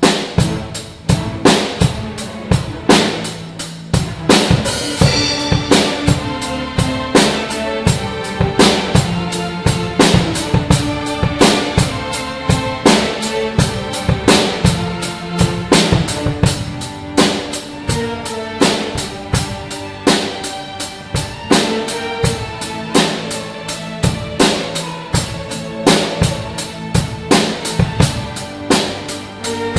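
A school orchestra playing, with a drum kit beating out a steady rhythm of bass drum and snare over sustained notes from the strings and double bass.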